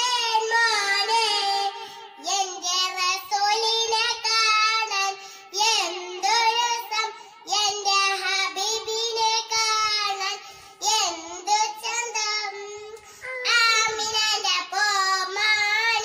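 A young girl singing a Malayalam devotional song in praise of the Prophet with no accompaniment. Her phrases last a second or two, with short breaths between them.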